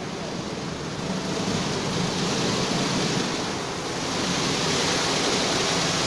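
Automatic rollover car wash running: rotating nylon brushes scrubbing a car under spraying water, giving a steady, noisy rush with a low machine hum. It gets slightly louder about four seconds in.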